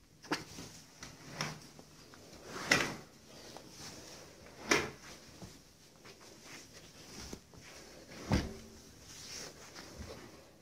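A handful of separate sharp knocks or thumps, with faint rustling between them.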